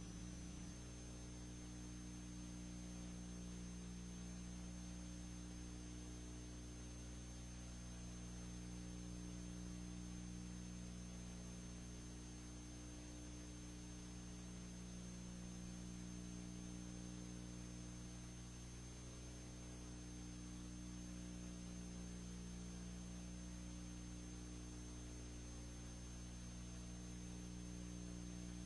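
Steady electrical mains hum with a constant background hiss and a faint high-pitched whine: the noise floor of an otherwise empty soundtrack.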